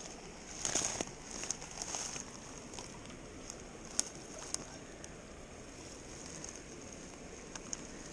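Soft rustling and a few sharp clicks from handling a fly rod and landing net among dry leaves, over a faint steady hiss.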